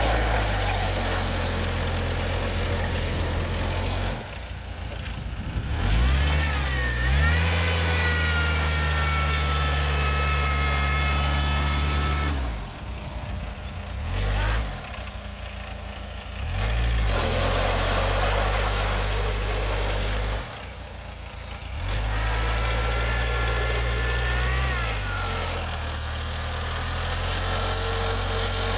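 Homemade tractor's engine revving hard and holding high revs under load as it tries to drive out of a muddy, stony stream bed, easing off and revving up again several times. A higher whine rises and falls with the revs.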